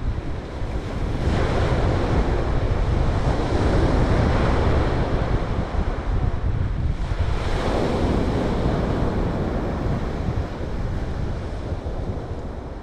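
Sea waves breaking and washing up a pebble beach, the surf surging twice, with wind buffeting the microphone as a steady low rumble.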